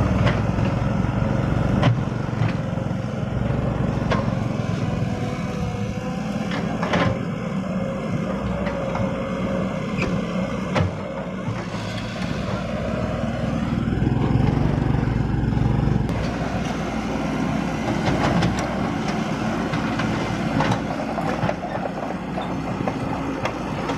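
Heavy diesel construction machinery running steadily, with short knocks and clanks now and then.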